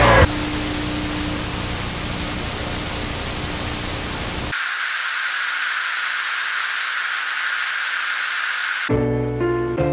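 TV static: a loud even hiss. About halfway through the low part drops out and it narrows to a thinner, higher hiss. It cuts to music near the end.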